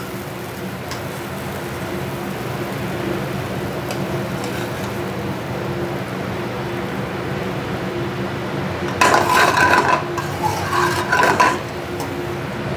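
Kitchen noise: a steady hum from the commercial range and exhaust hood, with light clinks of metal tongs and food on a plate. About nine seconds in comes a louder stretch of pan noise lasting two to three seconds.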